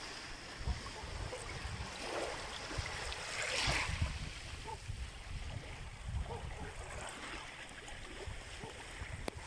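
Small waves lapping and washing onto a sandy shore, one wash swelling louder about three and a half seconds in, with wind rumbling on the microphone.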